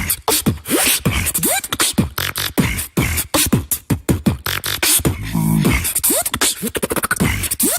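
Human beatboxing: a fast mouth-made beat of deep falling kick-drum sounds and sharp clicks, with a short buzzing hum a little past the middle.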